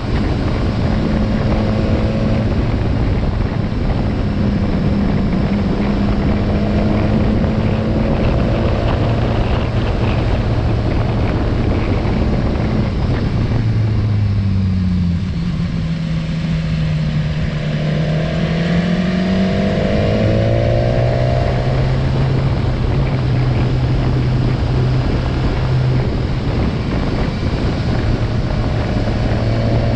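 Motorcycle engine running at a steady cruise under wind and road noise. About halfway through, the engine note drops as the bike slows, then rises again as it picks back up and settles.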